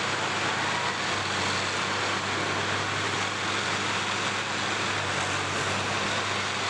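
Combine harvester engines running steadily together, a dense even noise over a low steady hum.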